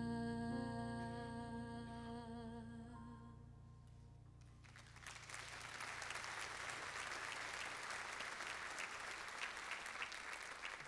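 The last sung note and keyboard chord of a slow ballad are held and fade away over the first few seconds. Audience applause then starts about five seconds in and continues.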